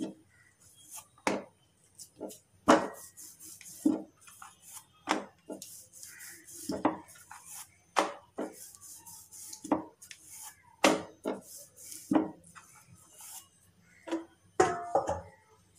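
Wooden rolling pin rolling out rounds of poori dough on an oiled stainless-steel rolling board: irregular knocks and clicks about once a second as the pin and dough meet the metal, with scraping and rubbing between.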